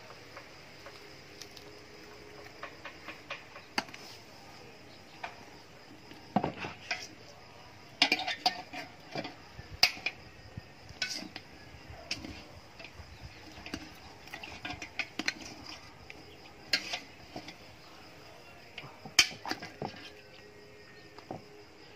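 Metal ladle clinking and scraping against the inside of a large metal cooking pot as the meat in it is stirred and turned. The clinks are irregular and come thickest about eight to ten seconds in and again near the end.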